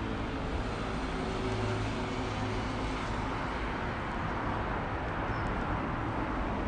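Steady city traffic noise, a constant rush with a low engine hum that stands out in the first few seconds.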